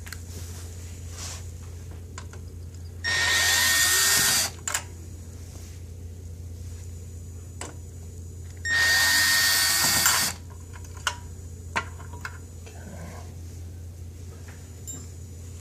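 Power drill-driver backing out the screws of a TV stand base, running in two bursts of about a second and a half each with a steady whine, followed by a few short sharp clicks.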